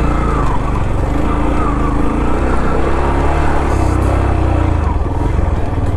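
Motorcycle engine running while the bike is ridden over a rough off-road track, its pitch rising and falling with the throttle.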